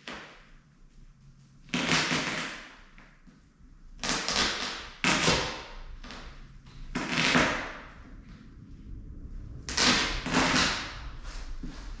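Old boat-seat upholstery being ripped off the bench in several separate tearing pulls, each about half a second to a second long.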